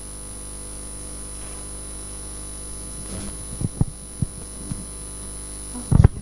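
Steady electrical mains hum. A handheld microphone is handled and passed from one person to another: a few soft low knocks, then a louder bump near the end.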